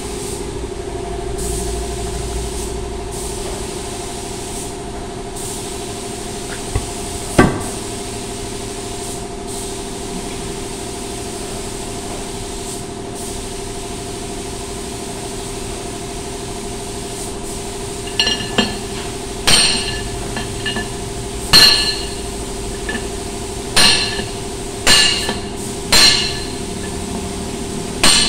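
A long steel bar or drift is struck down into a forklift wheel hub to knock out the old bearing cup. About eight sharp, ringing metal blows come roughly one a second over the last ten seconds, with two lighter knocks earlier. A steady engine hum runs underneath.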